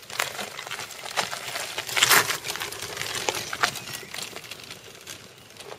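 Loose gravel crunching and crackling under the tyres of a handcycle wheelchair rolling down a woodland track, loudest in a burst about two seconds in.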